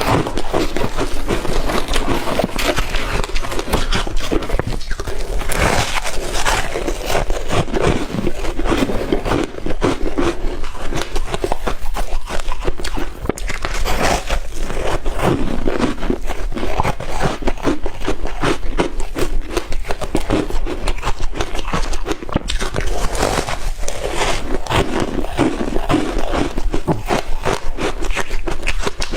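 Shaved ice being chewed: dense, continuous crunching and crackling.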